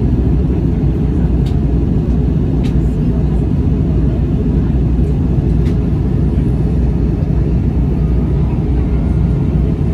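Steady cabin noise of an Airbus A321 in flight, heard from a window seat beside the wing: the deep drone of its CFM56 turbofan engines and rushing air, with a few faint clicks.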